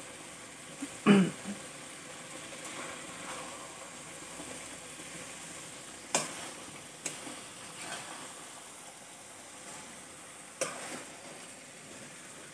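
Small-fish curry sizzling in a metal karahi over a wood fire while a spatula stirs it. The spatula gives a few sharp clacks against the pan.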